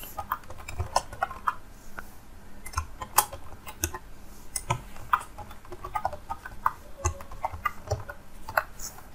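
Typing on a computer keyboard: a run of irregular keystroke clicks, several a second.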